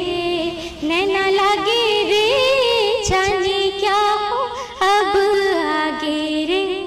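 A young woman singing solo, unaccompanied, in Indian film-song style: held notes full of quick pitch turns and ornaments, broken by a few short pauses for breath.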